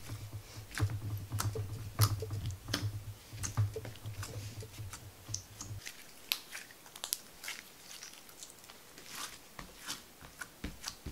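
White glue-and-borax slime being kneaded and squeezed by hand, giving a rapid, irregular series of small sticky clicks and pops.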